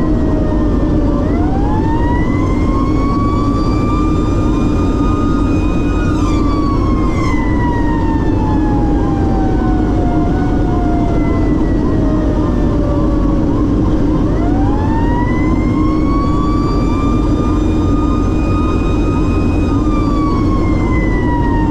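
Fire engine siren on a slow wail: it rises, holds high for a few seconds, then falls slowly, twice, heard over the loud steady drone of the engine and road noise inside the apparatus.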